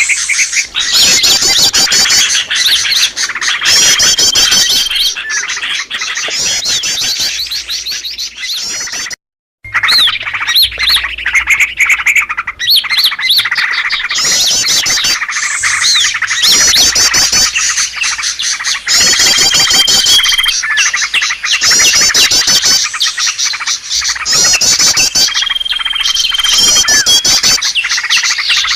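Bird-lure recording of many small songbirds chirping and trilling over one another in a dense, loud chorus, with a high held whistle recurring every few seconds. The sound drops out briefly about nine seconds in.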